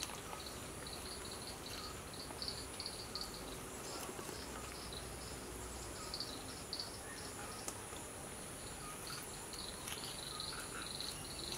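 Forest insects: a steady high-pitched buzz with bursts of rapid chirping pulses over it.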